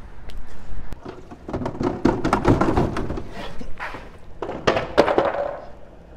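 A run of quick knocks and thuds, thickest about two seconds in, with a louder clatter about five seconds in.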